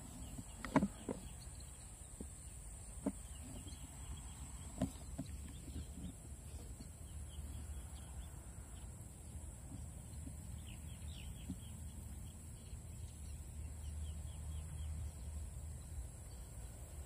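Faint rural outdoor ambience with distant chickens calling, a few soft clicks in the first five seconds and a steady high hiss.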